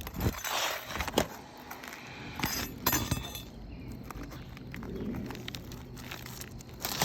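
Metal tool scraping and knocking against roof shingles, with several sharp clinks and a scrape, as damaged shingles are loosened and their nails pried out.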